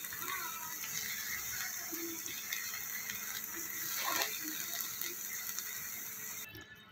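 Steel spatula stirring and scraping thick lauki halwa around a nonstick pan, over a steady hiss; one scrape stands out about four seconds in.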